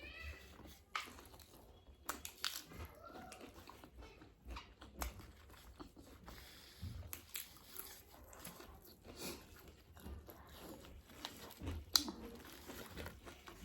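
Close-miked biting and chewing of crispy KFC fried chicken: irregular crunches of the coating, with one sharper crunch near the end.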